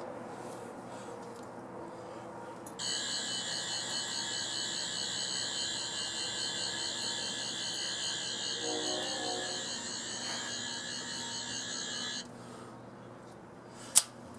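Toy sonic screwdriver buzzing with a high, warbling electronic whine. It switches on about three seconds in, holds for about nine seconds and cuts off suddenly. A single sharp click follows near the end.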